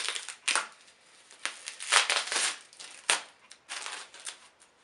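Packing material rustling and crinkling as it is handled, in a series of short, uneven crackly bursts; the loudest comes about two seconds in.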